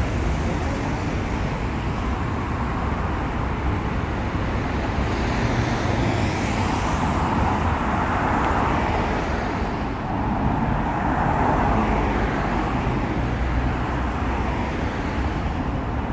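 City road traffic: cars running past on the street beside the pavement, a steady noise that swells twice around the middle as vehicles go by.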